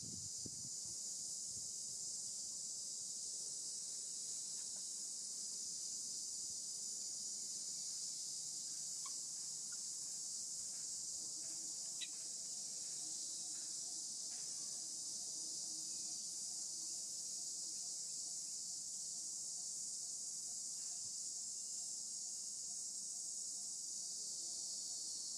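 Steady, high-pitched chorus of insects drones on without a break, with a faint click about halfway through.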